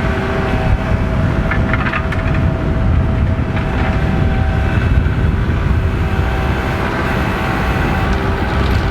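Kubota MX 5400 tractor's diesel engine running steadily, with a steady whine over the low rumble.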